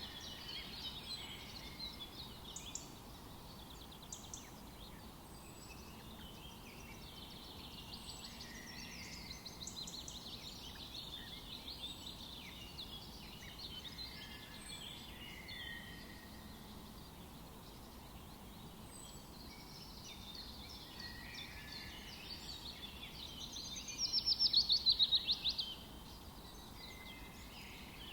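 Several wild birds chirping and singing in short phrases over a faint steady background hiss. About 24 seconds in, one bird gives a loud, fast run of repeated notes lasting about a second and a half.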